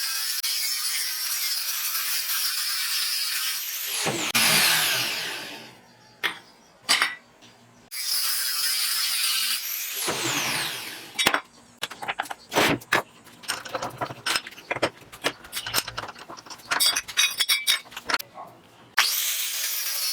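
A power tool running with a steady high-pitched noise, winding down twice with a falling whine. In between and after come a rapid run of irregular sharp clicks and knocks.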